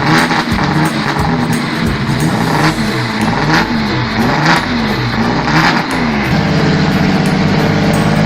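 Car engine being revved in repeated blips, its pitch rising and falling about once a second, then held at a steady speed about six seconds in.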